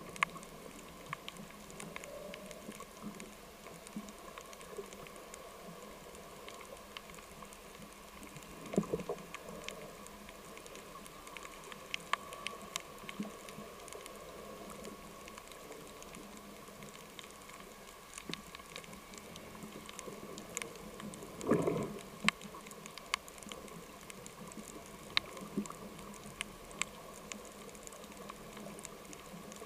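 Underwater ambience picked up through a camera's waterproof housing beside a rocky reef: a steady hiss with scattered sharp clicks and crackles throughout. Two louder rushes of noise come about nine seconds in and just past twenty seconds in.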